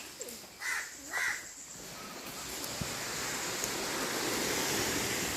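Two short, harsh bird calls about a second in, then a steady rushing noise that slowly grows louder.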